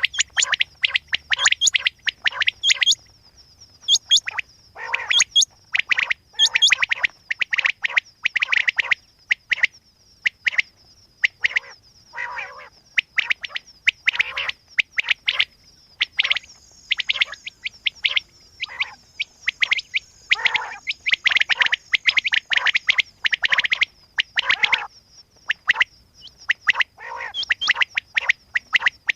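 Quail calling over and over in quick, irregular runs of short sharp notes, with a thin steady high tone underneath.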